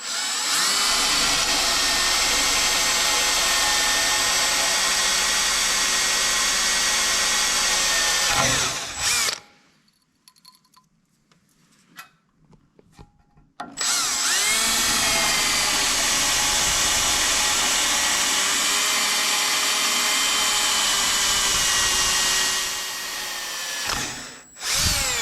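Electric drill with a 5/32-inch bit pre-drilling pilot holes in a tractor's metal frame: two long steady runs of about eight and ten seconds, each spinning up and winding down, with a pause of a few seconds between them and a brief blip of the drill near the end.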